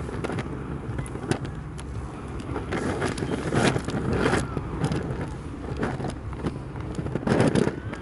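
Waves washing up a shingle beach, with the pebbles clattering and rattling in the surf, and wind on the microphone. Two louder surges of rushing water come about three and a half seconds in and again about seven seconds in.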